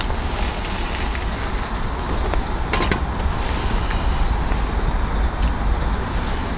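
Steady rushing roar of a lit camping gas stove burner under a frying pan, with a brief clatter of cookware about three seconds in.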